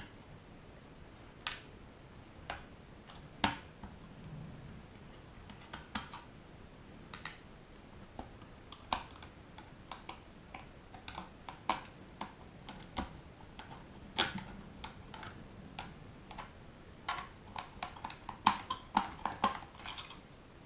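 Scattered small clicks and ticks of a 2 mm hex driver working screws out of a DJI Phantom 2's plastic leg, with the tiny screws set down in a plastic lid; the clicks come thicker near the end.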